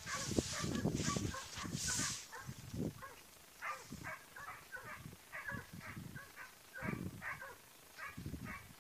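Hunting dogs barking in a string of short, faint yaps, about two a second, from a few seconds in, while working quarry in the reeds. A rumbling microphone noise comes before the barking.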